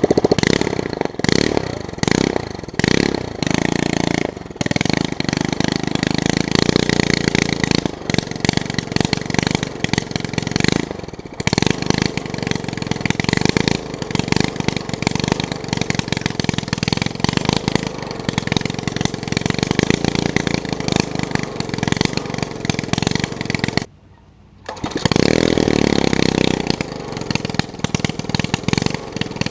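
Small lawn mower engine running with no muffler and a holed intake air box, loud and uneven, fed on sprayed starting fluid and carburetor cleaner. It drops out for under a second near the end, then runs again.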